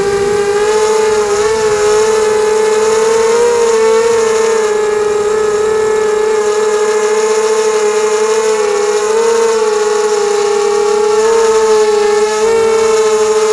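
ZMR 250 racing quadcopter's brushless motors and propellers whining steadily, heard from the quad's own onboard camera, the pitch wavering slightly up and down as the throttle changes in flight.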